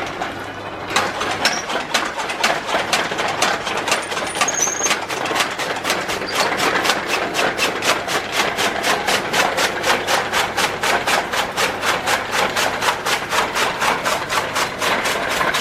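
Electric chaff cutter running, its blades chopping pineapple leaves for cattle feed in a fast, even rhythm of about five strokes a second over a steady motor hum.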